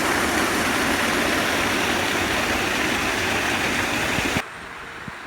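Water from a spring-fed outdoor shower pouring close by, a steady rushing noise that cuts off abruptly about four seconds in, leaving a much quieter background.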